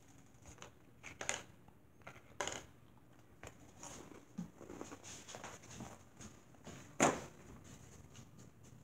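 Faint rustling and scattered light knocks, with one sharper, louder knock about seven seconds in.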